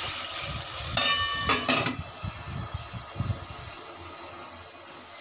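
Tomatoes sizzling in hot oil in an aluminium karahi, with two ringing metal clanks about a second in as the aluminium lid is set on the pan. Near the end the sizzle is quieter under the lid.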